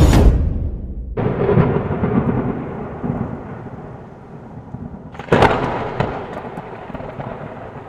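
Thunder used as an intro sound effect: a rolling rumble with a fresh crack about a second in and a sharper, louder one about five seconds in, each dying away.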